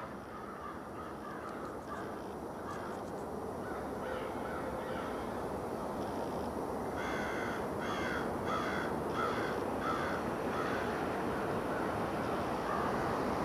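A crow cawing, faint calls at first and then a run of about seven harsh caws a little over halfway through, over the steadily growing jet noise of an Airbus A330-200 airliner approaching on final to land.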